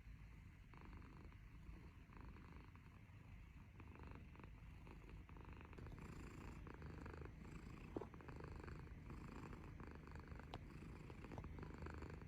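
Domestic cat purring softly in a steady low rumble, with a single brief click about eight seconds in.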